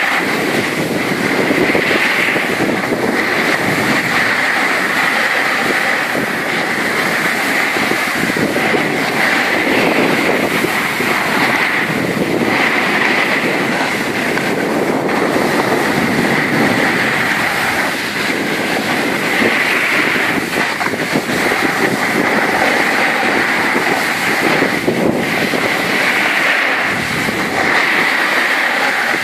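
Edges sliding and scraping over hard-packed, icy snow on a fast descent. The sound is a continuous loud rasping hiss that swells and eases every few seconds as the turns come and go.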